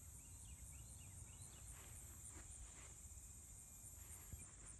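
Faint outdoor ambience: insects chirring steadily in a high, evenly pulsing drone, with a bird twittering a quick series of short chirps in the first second and a half.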